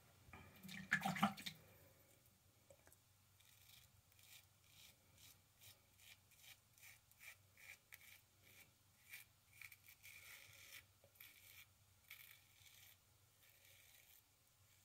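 A razor scraping through lathered stubble in short strokes, about two a second, faint and high-pitched.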